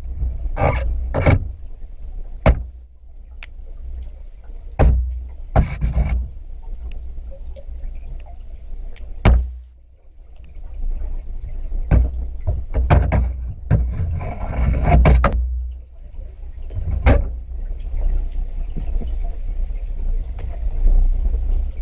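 Water moving around a camera as a deep steady rumble, with about a dozen irregular sharp knocks and short swishing swells.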